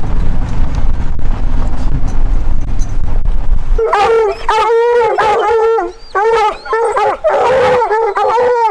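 A low rumble for the first few seconds, then bear hounds bawling loudly from the truck's dog box in a run of long, wavering howls, the sound of hounds striking scent from the box.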